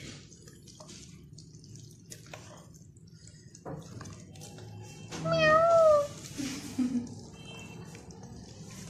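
A cat meows once, loudly, with a wavering pitch, about five seconds in. Under it is the quiet slosh of thick cream being swirled round in a metal pot.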